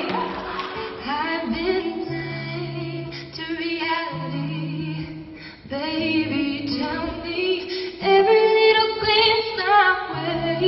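A woman singing solo to her own acoustic guitar accompaniment, her voice growing louder about eight seconds in.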